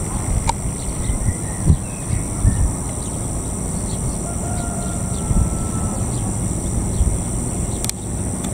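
Trackside outdoor ambience: a steady high-pitched drone of insects, a constant low rumbling noise underneath, and a few faint bird chirps.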